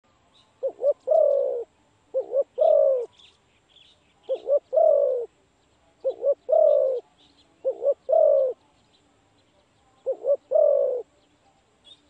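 Spotted dove cooing its song six times, every second and a half to two and a half seconds. Each phrase is two quick short coos followed by a longer coo that falls in pitch. Faint chirps of small birds can be heard between the phrases.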